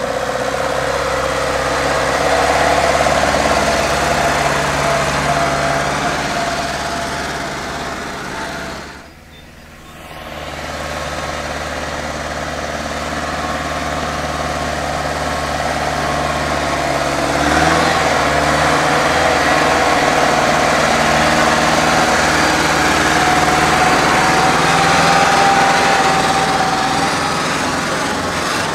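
Mercedes-Benz Unimog 421's diesel engine running as the truck crawls off-road over gravel and up a sandy slope, with a brief drop in sound about nine seconds in and the engine working a little harder from about halfway through.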